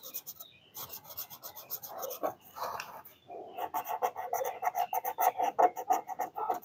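Felt-tip marker scribbling back and forth on paper, a rapid scratchy rasp of colouring strokes that grows louder about three seconds in.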